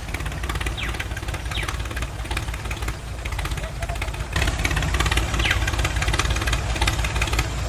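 Tractor engine idling: a low, fast chugging that steps up in loudness about four seconds in.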